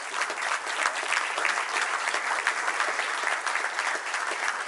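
A group of people applauding, dense even hand clapping.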